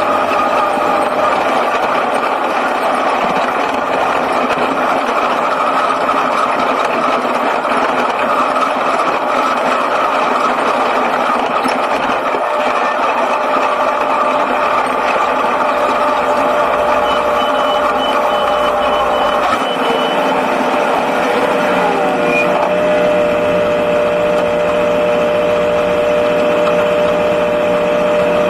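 Six-cylinder speedway sedan engine heard from inside the cockpit, running at low speed after the race, its pitch falling about three-quarters through as the car slows and then holding steady near idle. A high repeated beeping sounds for a few seconds just past the middle.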